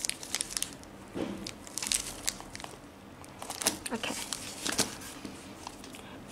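Clear plastic protective wrap on a handbag's leather strap crinkling and crackling as hands handle it, in a run of short, crisp rustles.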